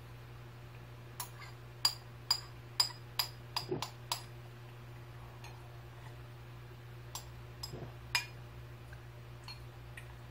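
Metal spoon clinking against a porcelain bowl while scooping out the last of the cereal and milk: a quick run of about eight sharp, ringing clinks, then a few more a few seconds later.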